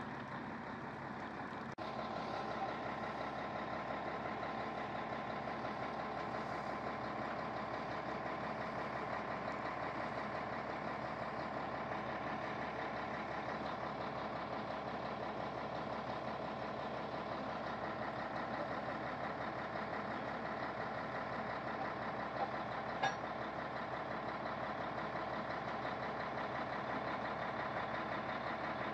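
Heavy diesel truck engines idling steadily, with a few faint clicks about two-thirds of the way through.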